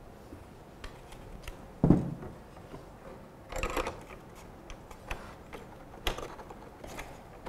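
Plastic monitor stand parts knocking and clicking as the stand upright is handled and fitted onto the back of a monitor: a few light knocks, the loudest about two seconds in, with a brief scrape a little after the middle.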